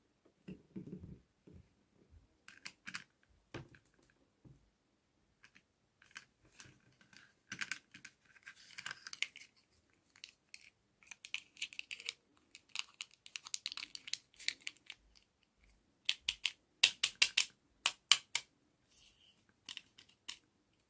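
Close-up handling of small plastic items and packaging: scattered light clicks, taps and crinkling, then a quick run of sharper clicks near the end.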